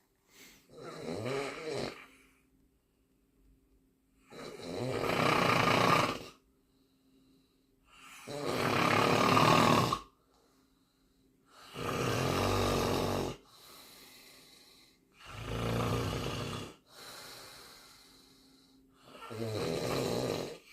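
Really loud snoring: six loud snores, one every three and a half to four seconds, each lasting one and a half to two seconds, with quieter breaths between some of them.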